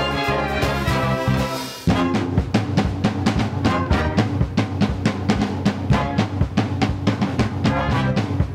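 Music: a melodic passage of several sustained instruments breaks off about two seconds in. A drum-driven passage with a steady beat and low instrumental tones beneath it follows.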